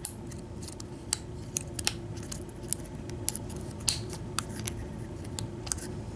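Lock pick and tension wrench clicking and scraping inside a Master Lock No. 40 padlock during single pin picking: irregular small metallic ticks, a few a second, over a steady low hum.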